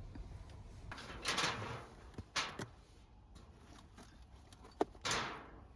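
Things being handled at close range: a few short scraping, sliding sounds and a single sharp click just before the last of them.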